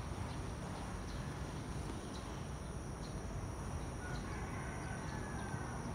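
Outdoor ambience: a steady high insect trill, with scattered faint bird chirps and a low background rumble.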